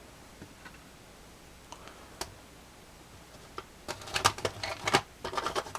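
Small hard clicks and taps of hand tools on laptop plastic, a few scattered at first, then a dense run of clicking and clattering from about four seconds in.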